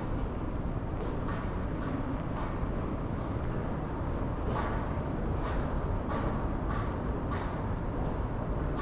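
Footsteps on a hard tiled floor, a regular click about once a second, over a steady low rumble.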